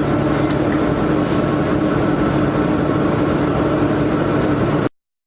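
Machinery running steadily with a constant hum, cutting off suddenly near the end.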